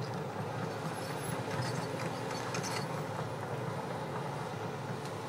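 Diesel engine of a CASE tracked excavator running with a steady low drone as the machine crawls along on its tracks, with a few faint clanks.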